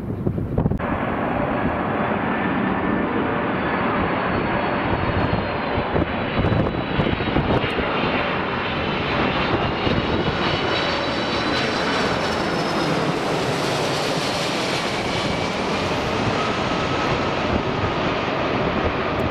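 Boeing 747's four jet engines on final approach, passing low overhead: a loud, steady jet noise with a high fan whine that climbs in pitch as the aircraft nears and slides down after it goes over, in the last few seconds.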